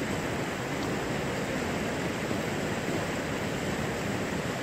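Steady rush of a mountain river's flowing water: an even, unbroken noise with no distinct events.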